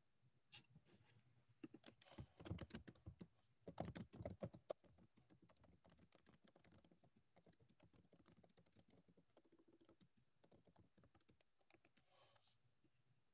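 Faint typing and clicking on a computer keyboard: a quick flurry of keystrokes about two seconds in, then lighter scattered keystrokes.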